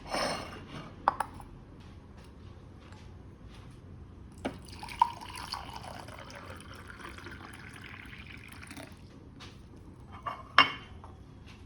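Dishes and glass clinking, with a few seconds of liquid pouring in the middle; the loudest clink comes near the end.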